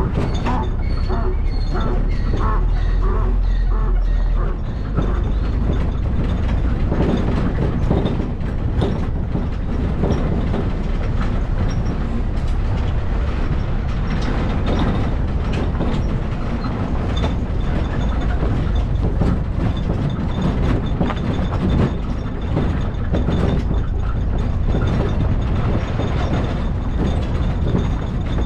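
Moving vehicle's ride noise: a steady low rumble with frequent rattles and knocks, as over a rough road.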